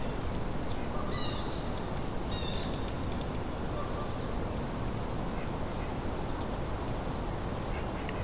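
A few short, distant bird calls about one and two and a half seconds in, with fainter chirps later, over a steady low background rumble.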